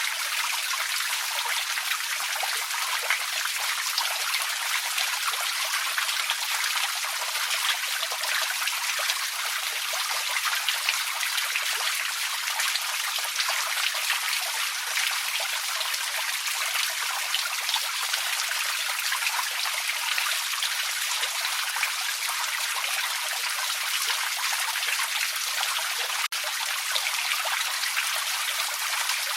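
Small creek trickling: a steady rush of running water with fine splashing, bright and without any low rumble.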